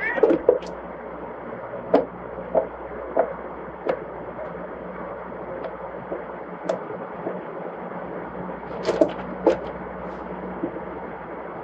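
Two cats play-fighting on a wooden floor: irregular soft thumps and scuffles of paws and bodies on the boards, several close together in the first second and again about nine seconds in, over a steady low hum.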